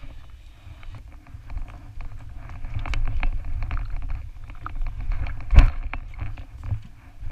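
Wind buffeting a body-worn GoPro's microphone as a low rumble, with footsteps crunching on gravel while running; a sharp knock stands out about five and a half seconds in.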